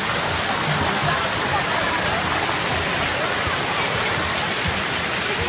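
Water park fountain jets spraying and splashing into a shallow pool: a steady rushing hiss, with voices in the background.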